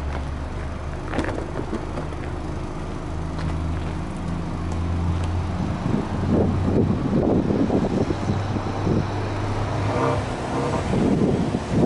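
Subaru Legacy B4 2.0GT's turbocharged flat-four heard at the twin tailpipes, idling steadily. From about six seconds in, the throttle is blipped several times, the exhaust note rising and falling with each rev.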